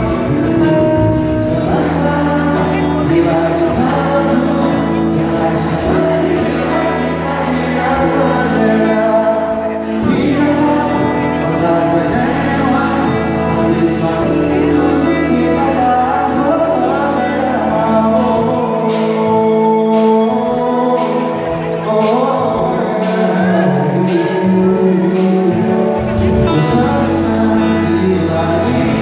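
Live pop ballad played by a band, with singing over it.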